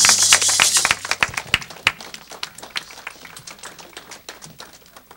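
Audience applauding, loud and dense at first, then thinning to scattered claps that die away by the end.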